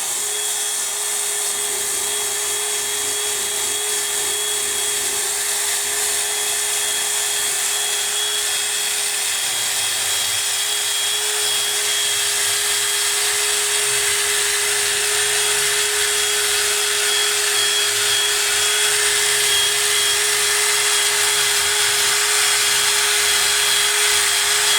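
Power drill running steadily at constant speed, spinning a stack of mesh abrasive pads against an oak spindle to polish out sanding scratches: a steady motor whine over a rasping scrub, growing slightly louder toward the end.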